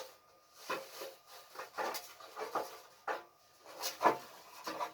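Gas stove parts being handled and checked during a repair: a run of short scrapes and light knocks, about eight spread over the few seconds.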